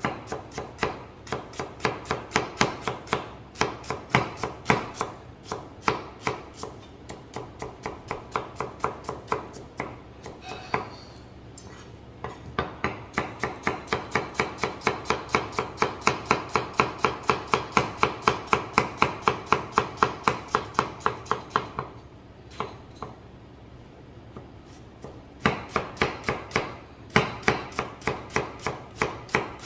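Chef's knife finely slicing a red onion on a plastic cutting board: quick, even knife strikes at about three to four a second, pausing briefly about ten seconds in and again a little after twenty-two seconds.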